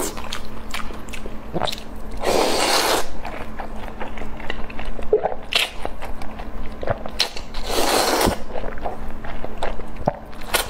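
Close-miked eating of noodles: two long slurps, about two seconds in and again about eight seconds in, with chewing and small mouth clicks between them.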